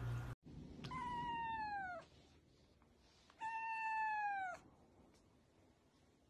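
A long-haired colorpoint cat meowing twice: two drawn-out meows of about a second each, a couple of seconds apart, each dropping in pitch at its end.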